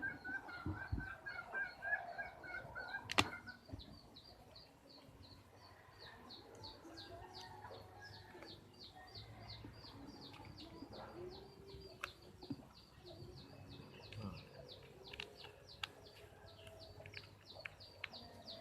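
Birds chirping: a long run of short, high chirps repeating about three to four times a second, with a sharp click about three seconds in.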